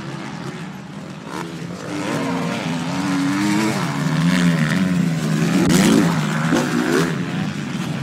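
Several motocross bikes racing on a dirt track, their engines revving up and down as they accelerate and shift. They grow louder from about two seconds in as the bikes approach.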